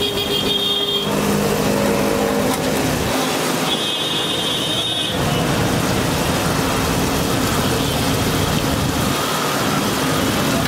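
Steady roadside traffic noise from passing vehicles.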